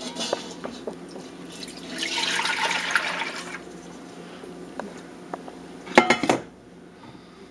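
Cream being poured from a metal bowl into a stainless steel stockpot, a loud splashing pour lasting about a second and a half, with light knocks of metal on metal around it. Near the end comes a short, loud clatter of metal on metal.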